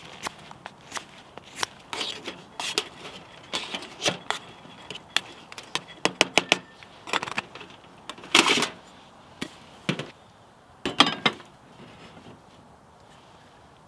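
Irregular small clicks and knocks of camp cooking gear being handled, with two louder short rustles about eight and a half and eleven seconds in.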